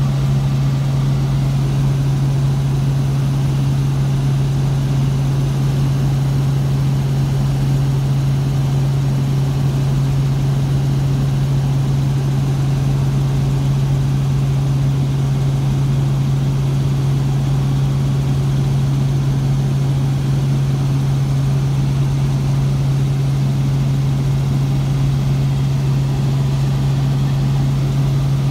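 Helicopter in cruising flight heard from inside the passenger cabin: a loud, steady drone of rotor and engine noise with a strong unbroken low hum.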